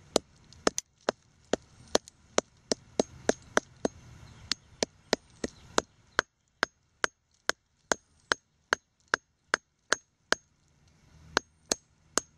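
Hammer tapping steadily on the encrusted solid-iron Whitworth bolt, sharp knocks about three a second with a short pause near the end, chipping off the hardened crust that coats the shell.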